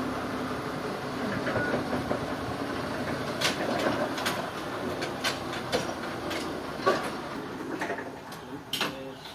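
Sawmill machinery running with a steady hum, with a run of sharp, irregular knocks and clanks starting about three seconds in.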